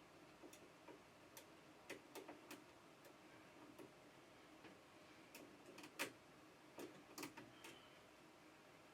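Faint, irregular clicks and small snips as the packing restraints inside a new FlashForge 3D printer are cut loose by hand; the loudest click comes about six seconds in.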